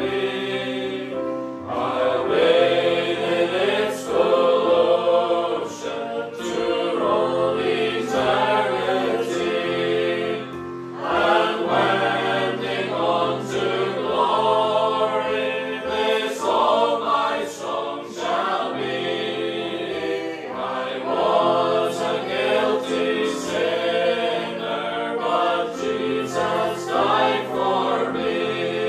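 Small mixed choir of men and women singing a hymn in harmony, phrase by phrase with short breaths between lines, accompanied by an electronic keyboard.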